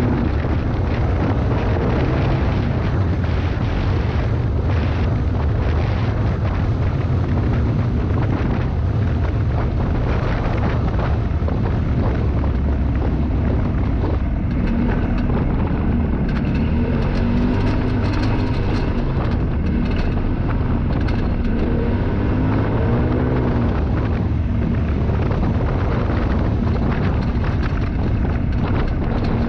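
Off-road side-by-side driving fast on a dirt desert trail: a steady engine-and-drivetrain rumble whose pitch rises and falls several times as the throttle changes, with heavy wind noise on the microphone and scattered clicks and rattles from the rough ground.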